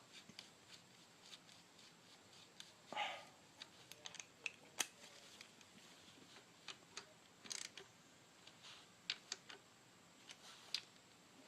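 Scattered light clicks and taps of metal engine parts and tools being handled, with a couple of brief rustles, over faint room tone.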